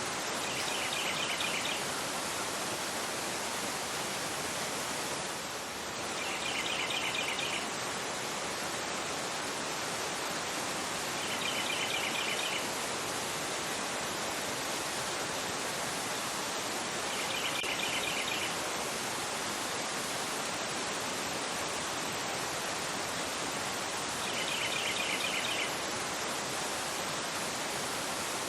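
Fast river rushing over a rocky bed, a steady even sound of water. A bird calls a short, rapid trill about every five to six seconds, five times.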